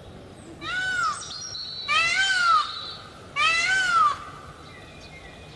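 A cat meowing three times, each meow rising and then falling in pitch.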